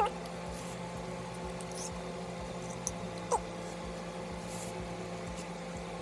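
Soft mouth sounds of a person eating spicy instant noodles off a fork: faint slurps, smacks and chewing, with a brief vocal murmur a little past three seconds in, over a steady low electrical hum.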